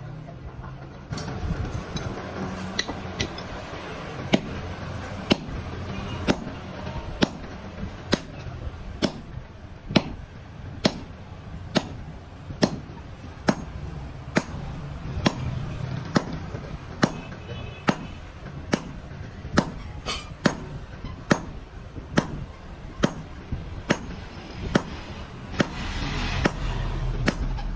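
Hand hammer striking steel on an anvil in steady forging blows, about one sharp, ringing strike a second.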